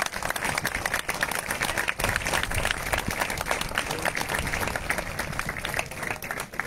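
A large crowd applauding: many hands clapping together in a dense, continuous patter.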